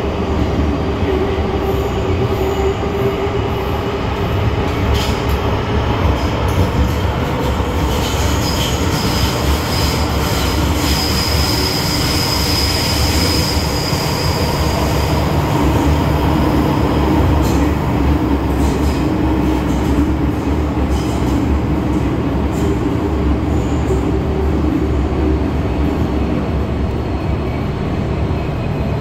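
MTR M-Train metro car running at speed, with a continuous rumble of wheels on rail and a steady hum. A high wheel squeal comes in about a third of the way through and lasts around six seconds.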